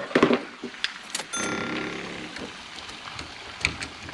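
Clicks and knocks of door-lock hardware being handled and fitted, with about a second of a short mechanical whir partway through.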